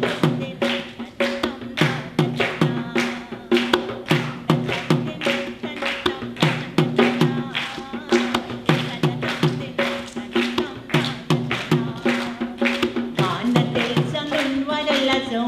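Traditional Sri Lankan drums played in a fast, steady rhythm: many sharp strokes a second over a ringing low drum tone. A held tone comes in near the end.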